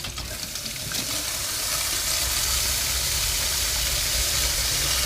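Water running from an open hot water faucet, a steady rush that grows a little louder over the first two seconds, as the hot water line is purged of air after the water heater is refilled.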